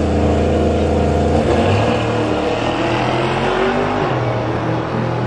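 Ford Mustang GT's V8 engine running at a drag strip start line, its note shifting about a second and a half in.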